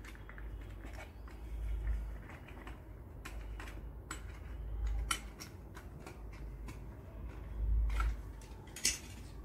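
Scattered small clicks and knocks of hard plastic being handled as a screw is tightened from underneath a baby walker's plastic toy tray, over a steady low rumble.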